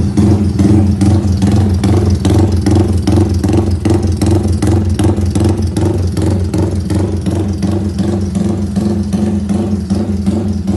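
Modified Yamaha Y15ZR (Exciter 150 / MX King 150) moped's single-cylinder engine idling loudly, with an even, lumpy pulse a few times a second.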